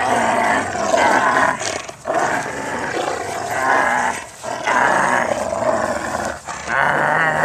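Rottweiler growling in play while tugging on a chunk of wood: long, loud growls broken by brief pauses for breath about two, four and a half, and six and a half seconds in.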